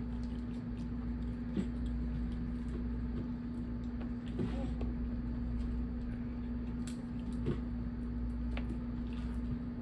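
Hands cracking and picking apart steamed blue crab shells: scattered small cracks and clicks, a second or more apart, over a steady low hum.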